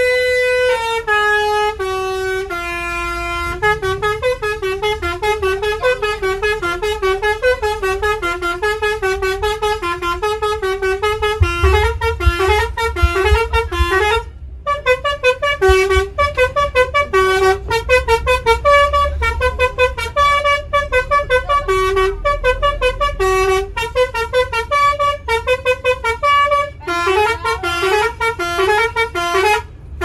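Basuri 'telolet' musical bus horn playing a fast melody of short stepping notes almost without pause, with a brief break about halfway through. A low rumble runs underneath.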